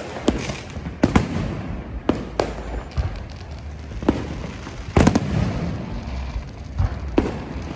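Fireworks going off: sharp bangs come every second or so, several close together about five seconds in, over a steady low rumble of more distant bursts.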